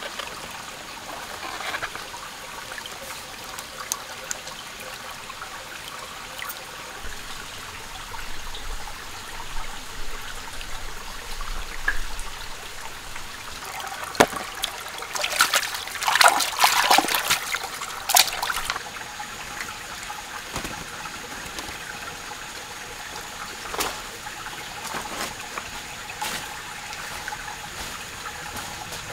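Shallow forest stream trickling over rocks. About halfway through there is a short run of sharp knocks and splashes from close handling at the water's edge.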